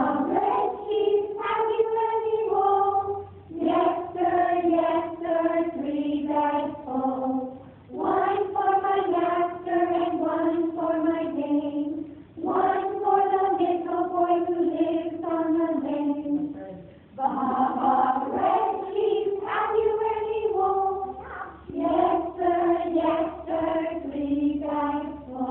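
A group of voices singing a song together, one phrase after another, each about four to five seconds long with a short breath between.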